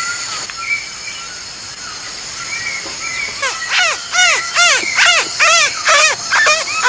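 A boy mimicking an antwren's call through cupped hands, to lure the bird in: a quick run of about a dozen short calls, each rising then falling in pitch, starting about three and a half seconds in at two to three calls a second. A steady high insect drone runs under it.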